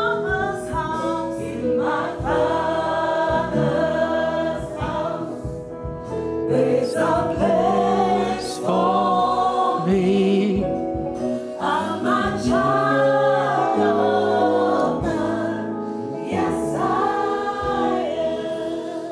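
Church worship team singing a slow gospel song, several women's voices together, with long held notes.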